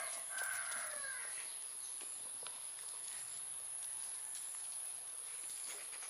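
A rooster's crow trails off in the first second. After that come light scuffs and clicks of puppies' paws on gravelly dirt over a steady high hiss.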